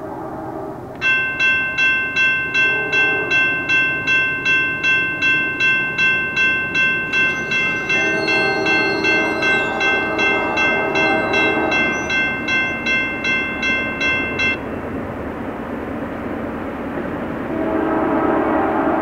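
A railroad grade-crossing signal bell rings about twice a second while the crossing gates come down, then falls silent about 14 seconds in. Over it, the horn of the approaching Norfolk Southern GE Dash 9 locomotive sounds more faintly: a short blast a few seconds in, a long one in the middle, and another starting near the end.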